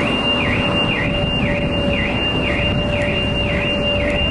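An electronic alarm sounds a high tone that swoops down in pitch and snaps back up about twice a second, over a background of low rumble. A fainter steady lower tone cuts out near the end.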